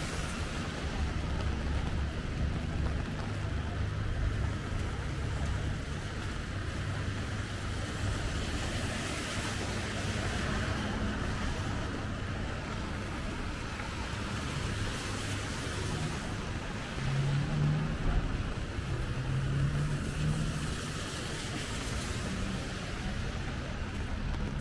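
Wet city street traffic: cars passing on rain-soaked pavement, their tyre hiss swelling and fading over a steady low rumble of engines, with a low engine hum standing out for a few seconds near the end.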